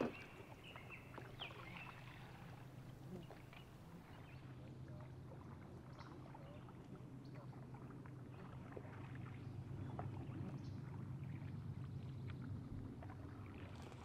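Canoe on a river: scattered light knocks and splashes from paddling over a steady low rush of water.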